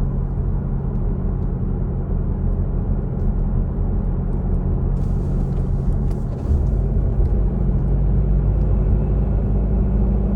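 Mazda CX-3 on the move, a steady low drone and rumble; this is the booming noise being checked after a repair.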